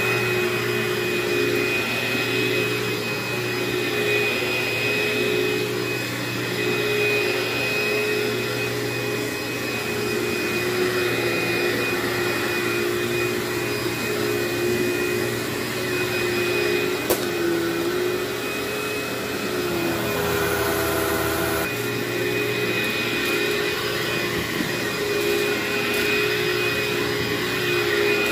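Upright vacuum cleaner running steadily as it is pushed back and forth over carpet in a dry pre-vacuum, a continuous motor drone with a steady whine. A single sharp tick about two-thirds of the way through, and the tone shifts briefly shortly after.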